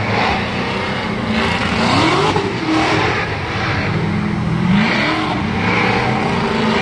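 Drift cars' engines revving hard, the pitch rising and falling several times as the cars slide through the turn, over a continuous screech of tires sliding on the track.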